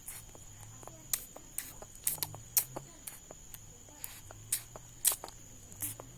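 Irregular smacking and chewing clicks of watermelon being eaten, about two a second.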